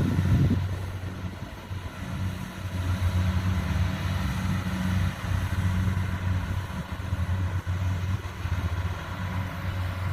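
Combine harvester's diesel engine running steadily in a rice field, a low hum that swells and dips in loudness.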